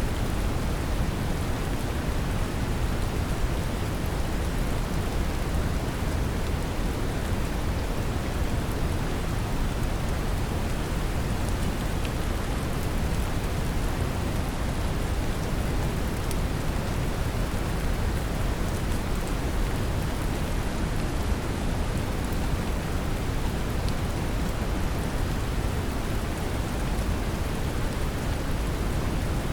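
Brown noise mixed with steady rain: a deep, even rumble strongest in the low end, with the patter of rain falling on a surface spread over it, unchanging throughout.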